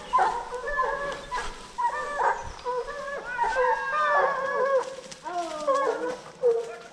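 A pack of hunting dogs baying, several voices overlapping in arching, rising and falling calls with no break: hounds that have a wild boar at bay.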